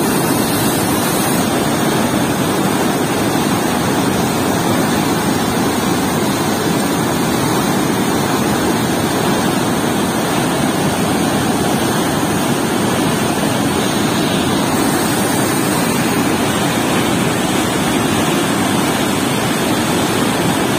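Loud, steady rush of water spilling through a weir's floodgate and churning into white water below, an even roar with no breaks.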